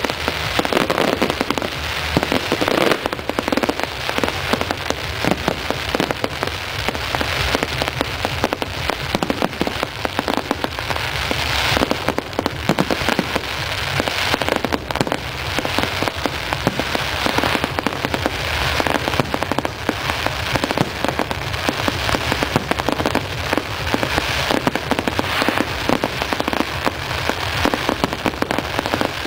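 Fireworks display: a dense, continuous crackling and popping from many bursting shells and crackling stars, at a steady loud level.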